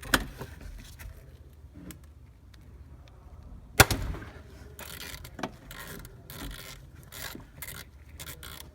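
A socket wrench working on the oil pan drain bolt: metal clicks and rattles of the tool, with one sharp crack about four seconds in.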